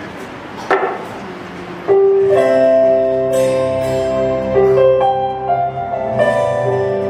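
Electronic keyboard playing a slow intro of held chords that starts about two seconds in, after a short knock.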